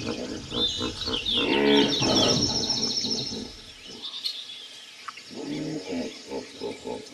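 Jungle ambience: birds chirping and trilling high over low animal calls, with one longer call a little under two seconds in and a run of short low calls near the end.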